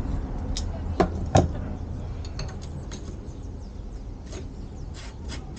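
Hand work on a bicycle frame: two sharp knocks about a second in, then scattered light ticks and clicks of small parts and tools. A low background rumble fades away underneath.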